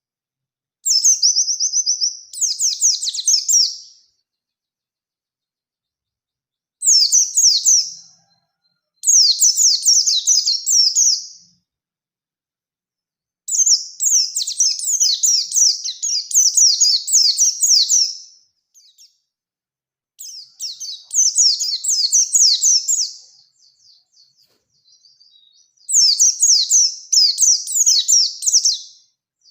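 Pleci (white-eye) singing in long, fast, high-pitched warbling rolls. The song comes in six bursts of one to five seconds, separated by silent gaps.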